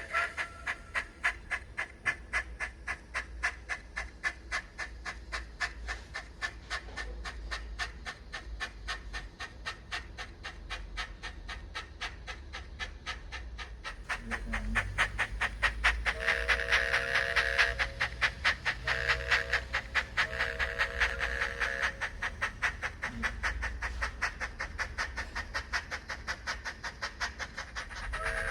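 Steam-locomotive sound from a Zimo DCC sound decoder in an OO9 Small England 0-4-0 model, played through its tiny speaker. The exhaust chuffs several times a second. About two-thirds of the way through come three whistle blasts from the second whistle set, the first the longest.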